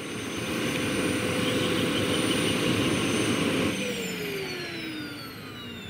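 PHT-3 model helicopter turbine running with a high whine over a steady rushing noise. About two-thirds of the way through, the whine starts falling in pitch and the sound eases as the turbine spools down.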